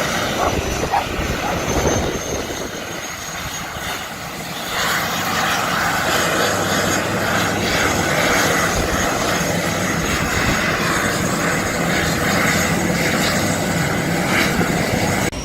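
Air ambulance helicopter running: steady rotor and engine noise with a thin high turbine whine slowly rising in pitch, growing louder about five seconds in.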